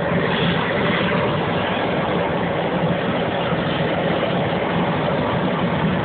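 Gas torch burning with a steady, unbroken rushing noise as its flame singes a pig carcass's hide.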